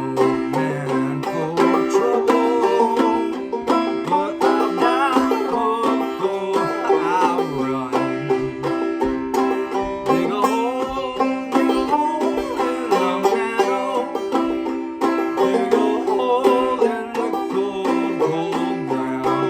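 Clawhammer banjo playing a traditional folk tune: a steady stream of plucked notes over ringing drone-string tones.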